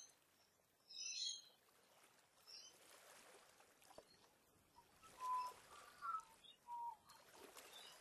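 Wild birds calling: a brief burst of high chirps about a second in, then three short clear whistled notes in the second half, over a faint background hiss.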